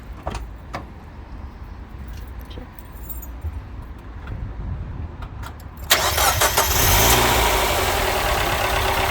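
A few faint clicks, then about six seconds in the 2003 Mazda MX-5's four-cylinder engine starts and idles, with the tappets a bit noisy at first because the oil had drained out of them during the oil change.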